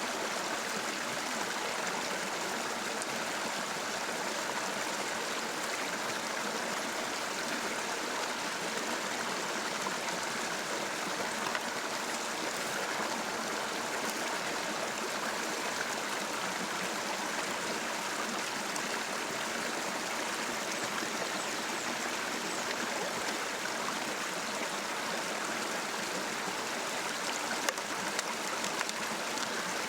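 River water running steadily, an even rush with a light tap about two seconds before the end.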